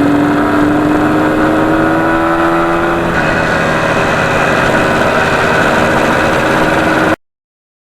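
1977 Yamaha RD400's air-cooled two-stroke twin running under way. Its note rises steadily for about three seconds, then levels off and holds steady.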